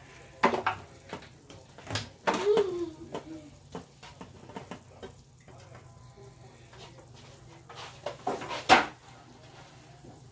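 Kitchen clatter: scattered knocks and clinks of cookware and utensils, irregular, with the loudest knock near the end.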